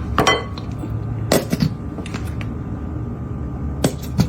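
A few scattered light clinks and knocks of kitchen containers and utensils being handled while mustard is added to the egg filling.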